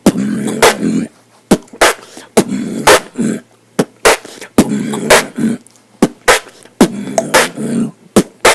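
Beatboxing: a rhythmic pattern of sharp, snare-like mouth hits interleaved with short hummed bass notes.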